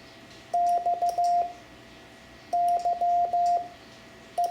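Morse code sent as a single steady beeping tone in long and short pulses: X (dah-dit-dit-dah), then Y (dah-dit-dah-dah), with L (dit-dah-dit-dit) starting near the end, spelling "XYL", ham radio shorthand for wife.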